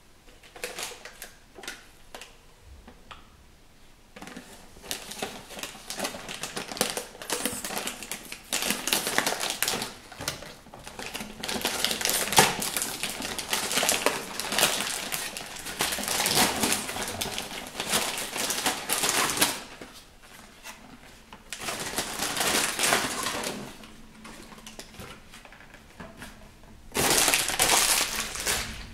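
Cardboard box of Tassimo T-discs being handled and opened: crackling and rustling of cardboard and packaging in several stretches, the last one near the end short and loud.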